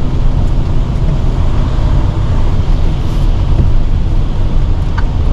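Tractor-trailer's diesel engine running as the truck drives, a steady low rumble heard from inside the cab with a hiss of road noise over it. A row of regular clicks, about three a second, begins near the end.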